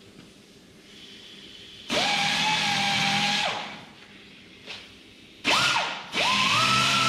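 Pneumatic die grinder grinding down a built-up ridge on a tractor's steering knuckle so the part can be pulled out. It runs in bursts: a run of about a second and a half that winds down, a quick blip, then a longer run at a higher pitch.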